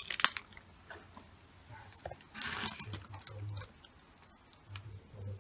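Handling and movement noise among debris: a few clicks and scuffs, a short hiss about halfway through, and several brief low hums or grunts.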